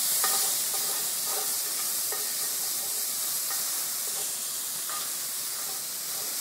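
Minced garlic and red pepper flakes sizzling in hot olive oil in a cast iron skillet, a steady hiss that eases slightly. A metal spoon stirring them clicks and scrapes against the pan now and then.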